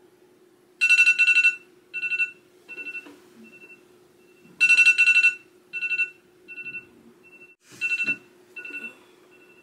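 Phone alarm ringing: a bright ringing chime sounds in three loud bursts, about a second in, near the middle and near the end, each followed by fainter repeats that die away. It is the alarm going off to wake a sleeper.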